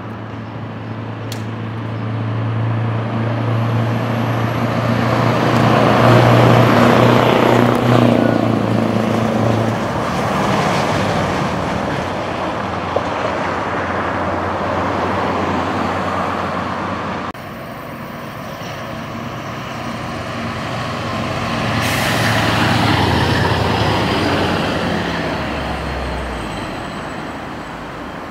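Scania R-series V8 diesel trucks driving past: a deep, steady engine note swells as the truck approaches, peaks and fades away. After a cut, a second pass swells and fades again, with a short sharp hiss near its peak.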